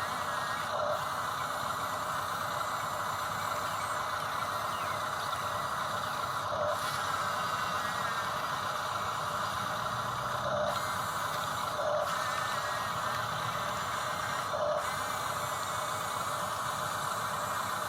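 Electric motors and plastic-and-metal gearboxes of a Huina RC construction machine whining steadily as it works, with short brief blips every few seconds.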